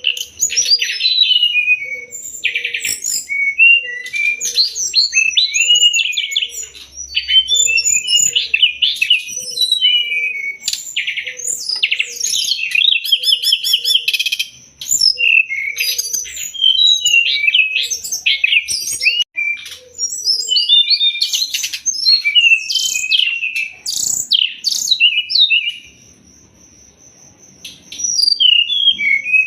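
Brown-chested jungle flycatcher (SRDC) singing a fast, varied song of whistles, chatters and trills, played as masteran for training caged songbirds. A low note repeats about once a second under the song for most of the first twenty seconds, and the song pauses for about two seconds near the end.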